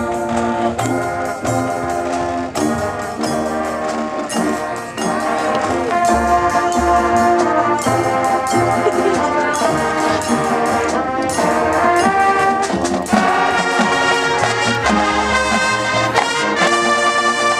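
Marching band playing: the brass section holds full, sustained chords over steady drumline percussion, getting louder about six seconds in.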